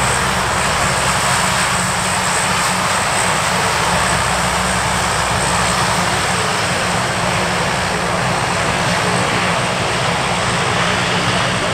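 A Lockheed C-130H Hercules's four Allison T56 turboprop engines and propellers running steadily on the ground: a loud, even drone with a constant high whine over it.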